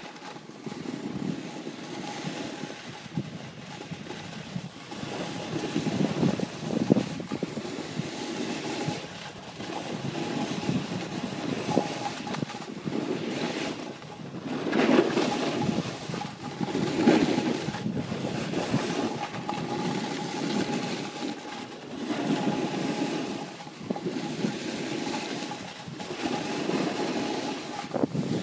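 Wind buffeting the microphone while moving fast downhill on a ski run, mixed with edges scraping over packed snow; the rushing noise swells and fades every two to three seconds with the turns.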